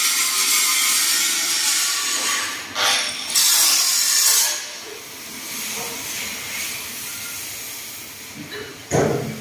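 Steady harsh hiss of steel being cut on a truck cargo body's side rail, loud for the first four and a half seconds and then fainter. A single knock sounds near the end.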